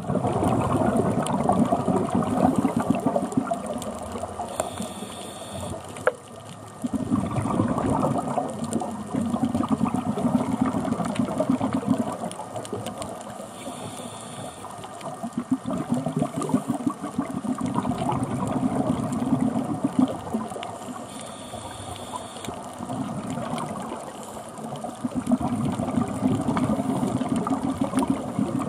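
Scuba regulator breathing heard underwater: a short hiss on each inhale followed by a long bubbling exhale, in a cycle of about eight seconds. A single sharp click comes about six seconds in.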